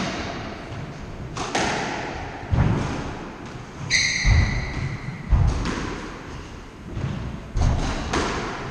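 A squash rally: the ball is struck by rackets and hits the walls in sharp thuds about once a second. A short shoe squeak on the wooden court floor comes about four seconds in.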